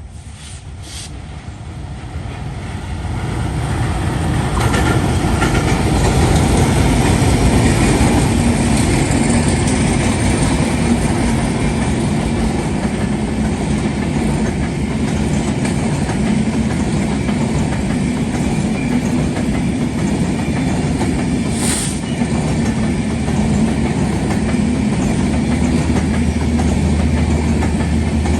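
Intercity passenger train coming up and running past close by. It grows louder over the first few seconds, then holds a steady rumble with wheels clattering over the rails, and a sharp click about 22 seconds in.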